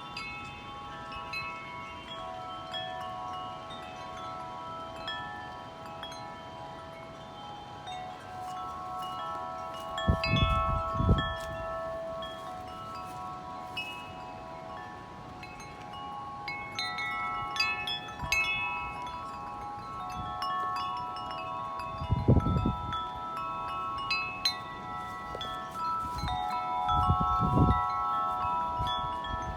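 Several wind chimes ringing continuously in gusty wind, many overlapping sustained tones. Three strong gusts buffet the microphone, about ten seconds in, past twenty seconds and near the end, and the chimes clang harder with each gust.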